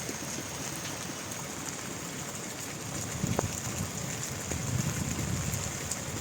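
Steady hiss of heavy rain falling. About halfway through, uneven low rumbling joins in, with one sharp knock.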